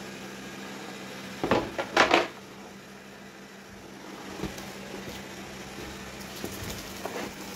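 Robot vacuum humming steadily, with a couple of brief clatters about one and a half and two seconds in as the metal tail fin and tube are handled on the plastic sheet.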